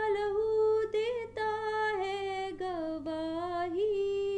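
A woman singing a Hindi worship song unaccompanied, holding long notes that slide and waver between pitches, with short breaths between phrases.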